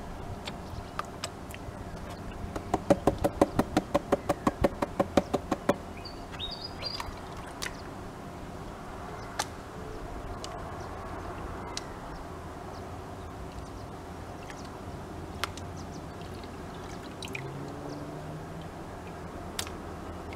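Plastic gold pan being shaken in a tub of muddy water: a quick, even run of slaps, about six a second, for three to four seconds, then softer water washing as the pan is tilted and dipped to settle the heavy material and wash off the light.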